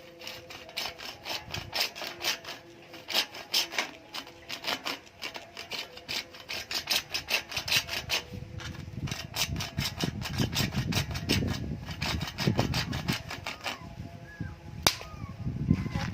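Hand-tool work on a hard material: a rapid, uneven run of clicks and scrapes, with heavier knocks toward the middle and one sharp click near the end.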